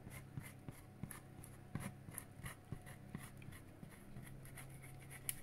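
Block of cheese being rubbed on a hand grater: a string of soft, irregular scraping strokes.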